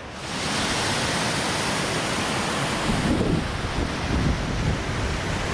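Steady rush of a mountain stream running below. From about three seconds in, wind buffets the microphone.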